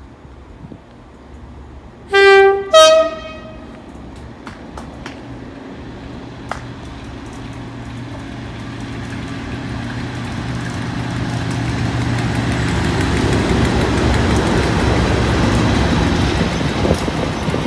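Class 37 diesel locomotive sounding its two-tone horn, two short blasts, a lower note then a higher one. Its engine drone and the rail noise then build steadily as the train approaches.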